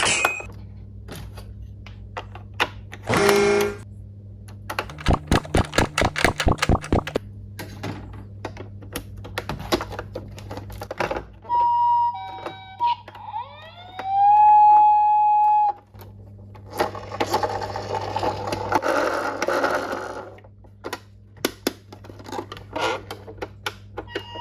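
Toy vehicles and their packaging being handled: plastic clicks and rattles, with a quick run of sharp clicks early on. A toy's electronic sound plays in the middle: a steady beep, then a tone that rises and holds. It is followed by a few seconds of packaging rustle.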